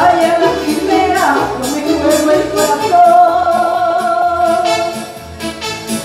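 A woman singing live into a microphone over electronic keyboard accompaniment with a steady beat, amplified through a PA. She holds one long note about halfway through.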